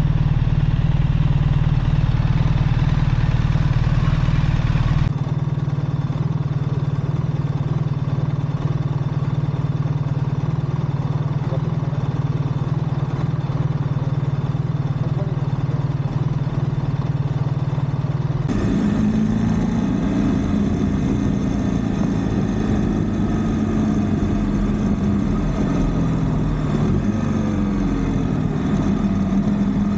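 BMW R1300GS Adventure's boxer-twin engine running with a steady drone. The sound changes abruptly twice, about five seconds in and again past the middle. In the last third the engine note rises and falls as the bike is ridden.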